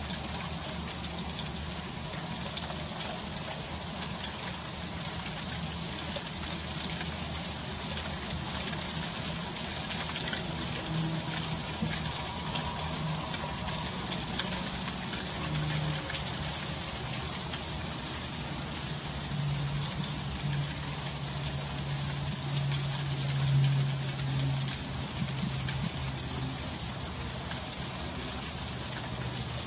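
Freezing rain falling steadily, a dense hiss of many small ticking drops and ice pellets striking surfaces, with a low hum underneath.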